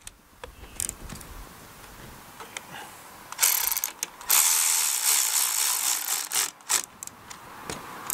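Cordless electric ratchet running down the carburetor mounting bolts on a small Briggs & Stratton mower engine, in two bursts: a short one about three and a half seconds in, then a longer one of nearly two seconds, with clicks of the socket and handling around them.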